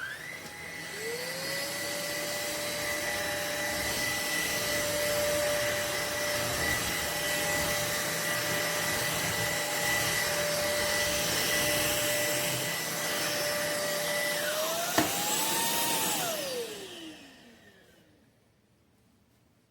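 SMOTURE cordless stick vacuum's motor spinning up with a rising whine and running steadily. About fifteen seconds in there is a click, the pitch rises briefly, then falls away as the motor winds down to a stop.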